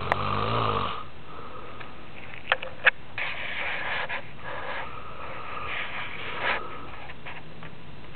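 A man snoring heavily in his sleep: a pitched snore about a second long at the start, then two long breathy, wheezing breaths. Two sharp clicks, the loudest sounds, come about two and a half seconds in.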